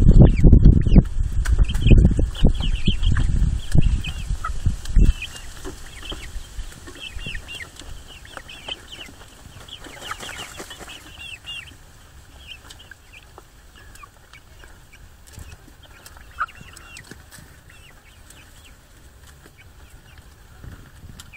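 Hens clucking softly, many short high notes scattered through, with one louder call about sixteen seconds in. A loud low rumble covers the first five seconds or so.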